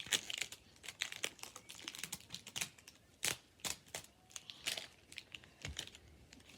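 Plastic wrapping crinkling and crackling in irregular clicks as the layers of a surprise toy ball are peeled off by hand.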